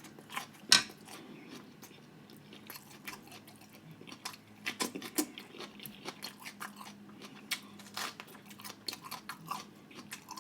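A person chewing food close to the microphone: irregular wet mouth clicks and crunchy bites, with the loudest crunch about a second in.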